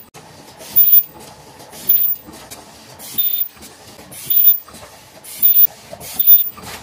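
Automatic paper box forming machine running. About once a second there is a short, sharp hiss of compressed air as its pneumatic valves fire, over a steady mechanical clatter.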